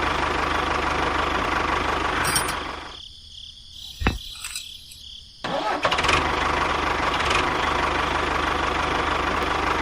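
Small engine of a miniature DIY tractor running steadily, dying away about a third of the way in; after a quiet gap with one sharp click it starts up again abruptly and runs on steadily.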